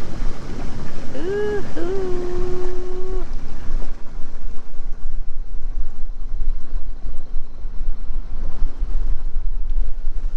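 Wind buffeting the microphone over the rush of water as a large cargo ship passes close alongside a small sailboat, its wash foaming along the hull. A deep rumble strengthens in the second half. About a second in comes a short pitched sound that rises and then holds one steady note for a second or so.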